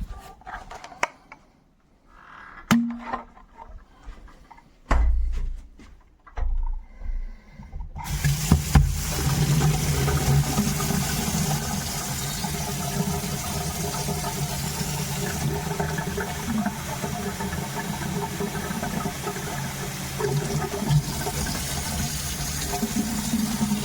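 A few clicks and knocks of plastic parts being handled, then about eight seconds in, water starts running hard from a tap into a sink and rushes steadily on as a wet-dry vacuum's dirty-water tank is rinsed.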